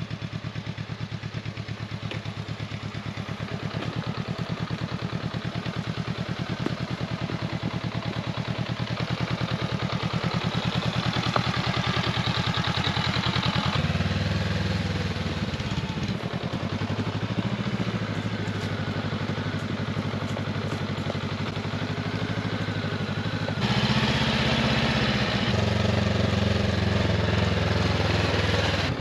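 Honda CB500X's parallel-twin engine running steadily as the motorcycle is ridden. About halfway through, the engine note starts to rise and fall with the throttle, and it gets louder near the end.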